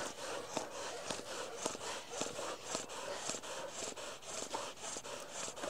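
Dogs panting and scuffling during a dog fight, with many small irregular clicks and scrapes and no barking.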